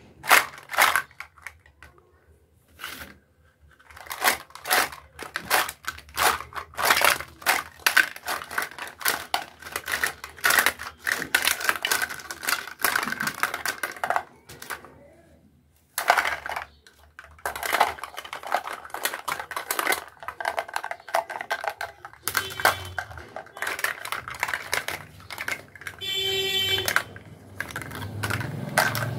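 Plastic toy fruits and vegetables clacking, tapping and knocking together as they are handled and tipped out of a plastic basket: a long run of sharp clicks with short pauses. A short pitched tone sounds a few seconds before the end.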